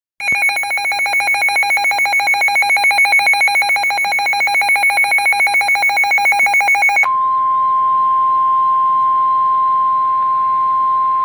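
Rapidly pulsing electronic alarm beep, about eight pulses a second, for about seven seconds, then switching abruptly to a single steady tone: the NOAA Weather Radio 1050 Hz warning alarm tone, which signals that a warning message is about to follow.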